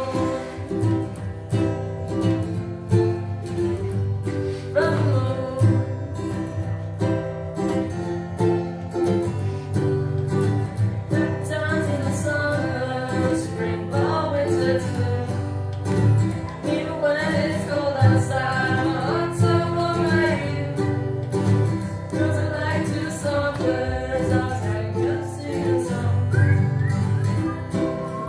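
Live singing accompanied by a plucked acoustic guitar, a song running steadily with no break.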